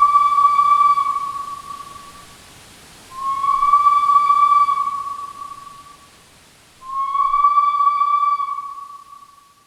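Steam locomotive whistle blown three times: each a long, steady, single-pitched blast that fades away.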